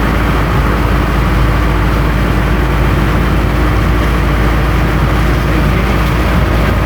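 Steady low rumble of a running vehicle engine, with a faint steady hum over it.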